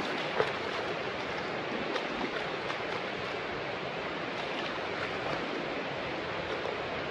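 Steady rush of the North Fork of the Virgin River flowing through the canyon, with one short sharp tick about half a second in.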